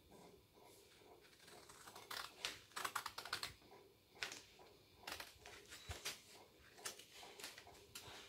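Colored pencil scratching across paper in quick back-and-forth strokes, coming in short bursts.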